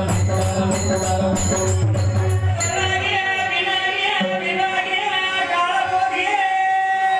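Marathi devotional bharud music: a barrel drum and jingling hand cymbals beat a rhythm, dropping out about three seconds in. A man then sings, with held harmonium notes underneath.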